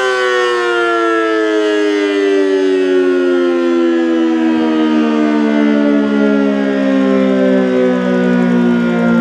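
ACA Allertor 125 outdoor warning siren sounding, its pitch sliding slowly and steadily downward.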